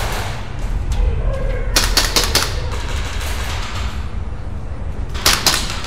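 Airsoft guns firing short bursts of sharp snapping shots, about two seconds in and again near the end, over a steady low rumble.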